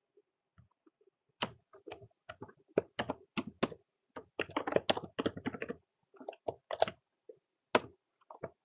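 Typing on a computer keyboard: irregular key clicks in quick runs with short pauses, starting about a second and a half in.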